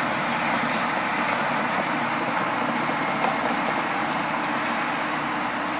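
Steady engine and vehicle noise from excavators and other machinery on a construction site, mixed with traffic, with a couple of faint clicks.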